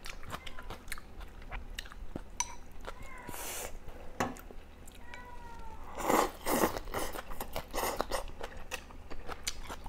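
Close-up eating sounds: wet chewing with small mouth clicks, and louder slurps about six seconds in as hotpot food in broth is sucked in. The food is duck, taro and water spinach.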